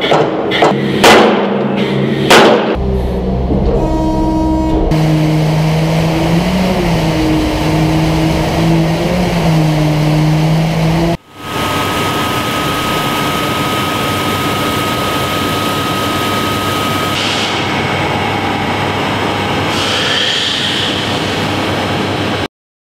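Movax DH-20 hydraulic pile hammer striking the top of a steel tubular pile, sharp repeated blows about two to three a second that stop after a couple of seconds. A steady hum with held tones follows for the rest, with a sudden break partway through.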